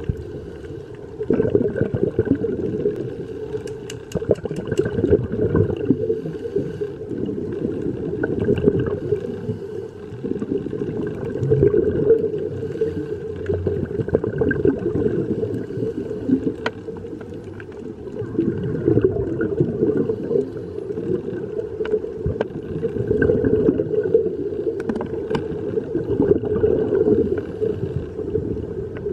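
Muffled underwater noise heard through an action camera's waterproof housing: a deep rush that swells and fades every few seconds, with a few faint clicks.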